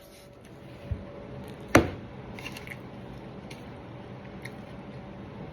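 Close-up eating sounds: chewing with faint wet clicks, a low thump about a second in and a sharp click just under two seconds in, over a steady low hum.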